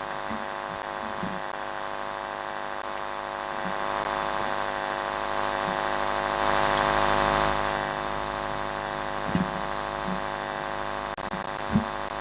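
A steady buzzing hum with many even overtones. It swells with a broad noisy rise around the middle, and a few short knocks sound near the end.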